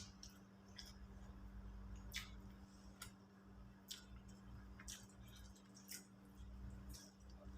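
Close-miked eating sounds: soft, wet mouth clicks and smacks about once a second while chewing.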